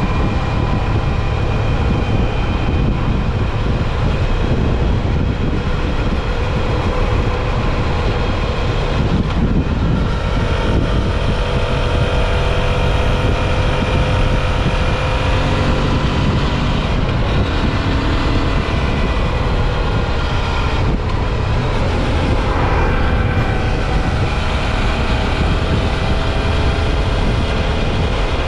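Suzuki V-Strom 650 XT's 645 cc V-twin engine running at a steady road speed under loud wind rush on the on-board microphone, its pitch shifting only a little.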